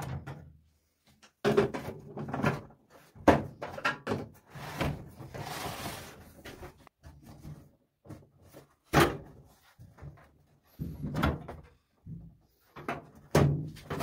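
Knocks and clunks from a microwave's sheet-metal outer cover being handled and worked loose, with a scraping stretch in the middle and the loudest bang about nine seconds in.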